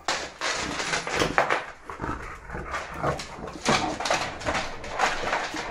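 Chow chow dogs whining in excitement at being taken out, with scuffling and a run of short clicks and knocks.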